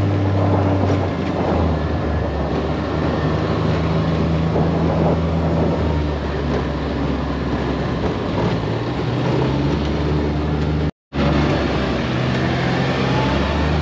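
Side-by-side UTV engine running steadily under way, heard from inside the open cab with the rumble of tyres on a dirt road; the engine note shifts in pitch a few times. The sound cuts out for an instant near the end.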